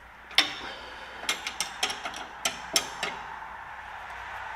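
A series of sharp metallic clicks and clinks from a wrench on the brake caliper bracket bolts, about nine in three seconds, spaced unevenly.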